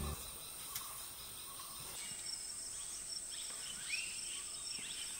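Forest ambience: a faint, steady, high-pitched insect buzz, joined after about two seconds by short chirping bird calls.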